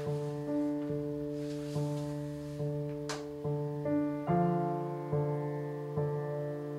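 Slow solo piano music, a note or chord struck a little under once a second. A brief sharp noise cuts in about three seconds in.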